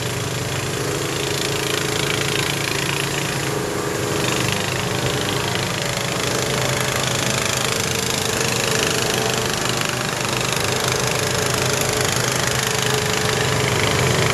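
Off-road buggy engine running steadily while driving along a dirt trail, heard from on board.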